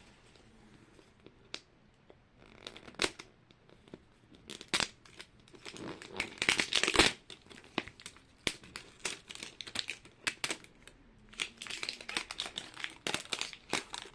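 Plastic packaging crinkling and rustling as it is handled and opened, in irregular bursts, the loudest about six to seven seconds in.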